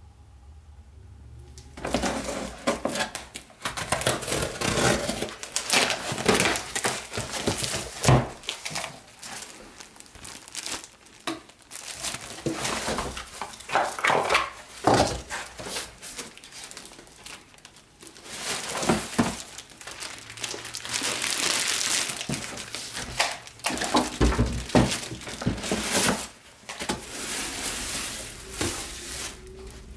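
Unboxing sounds: a cardboard shipping box being opened and plastic packaging crinkling and rustling as parts are pulled out, with irregular crackles and a few dull knocks of cardboard. It starts about two seconds in.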